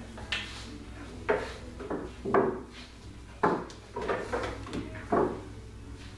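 Pool balls knocking: a cue tip striking the cue ball, then sharp clacks of billiard balls against each other and on the table, about nine knocks spread over six seconds.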